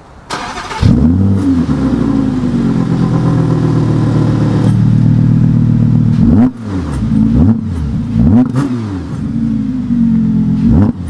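Audi R8's V10 engine being started: the starter turns briefly, the engine catches with a flare of revs and settles into a steady fast idle. After about six seconds it is blipped in a series of short revs, about one a second, each rising and falling back, with a very deep sound.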